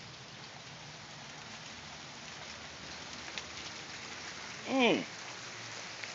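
A hail and rain shower falling steadily, an even hiss of drops with a few faint ticks. About five seconds in a man's voice gives one short call that falls in pitch.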